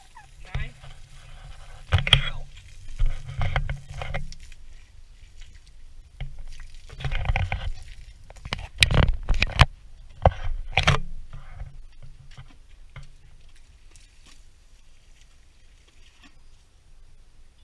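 Water splashing and sloshing in irregular bursts, with scrapes and sharp knocks, as an abscess on an Asian elephant's leg is flushed with a hose and pump sprayer. The activity fades after about two thirds of the way through.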